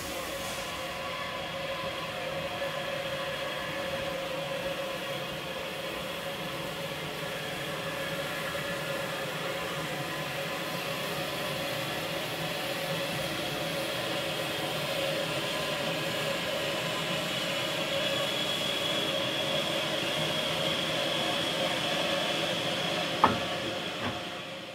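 Bulleid West Country class light Pacific steam locomotive standing at rest, giving off a steady hiss of steam with a constant hum. A single sharp clank sounds near the end.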